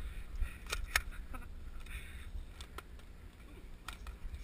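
A few scattered, irregular sharp clicks and taps over a steady low rumble.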